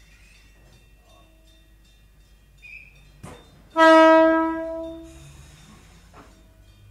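The air horn of the Ueda Kōtsū MoHa 5253 round-window electric car sounds once as a departure signal, loud and about a second and a half long, fading out. A sharp knock comes just before it.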